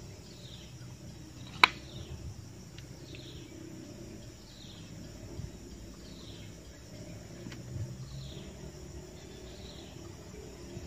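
Quiet outdoor background with an animal's faint, high chirp, falling in pitch and repeated about once a second. A single sharp click sounds about a second and a half in.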